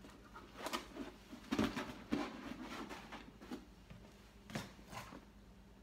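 Handling noise: scattered rustles and soft knocks, about six of them, as a suede tote bag is moved about and handled.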